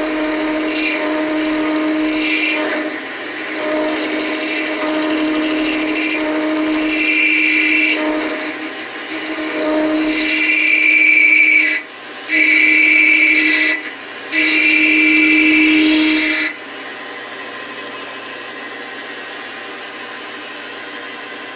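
Metal lathe parting off a metal bar: the machine's steady hum under a loud, high-pitched screech from the cutting tool. The screech comes in several bursts, the loudest in the middle, then stops suddenly, leaving the lathe running quietly.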